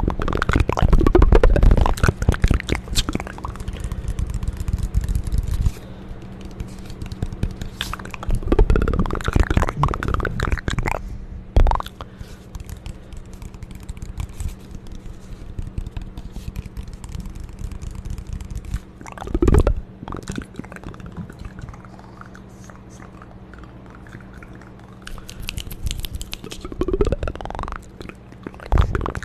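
Close-miked ASMR mouth sounds: wet clicks, smacks and crackles coming in bursts, loudest in the first few seconds, with quieter stretches between.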